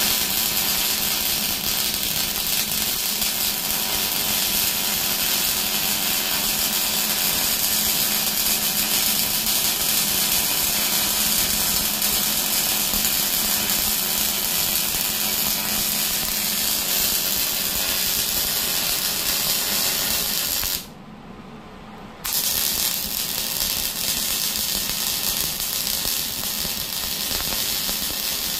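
Wire-feed welder laying a bead, welding a new tooth onto a steel backhoe bucket: a steady crackling hiss. The arc breaks off for about a second near the end, then strikes again for a second run.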